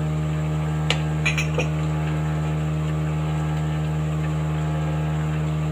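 Steady low electrical hum with evenly spaced overtones, unchanging throughout. About a second in, a few light metallic clinks, a steel spoon against the aluminium pan.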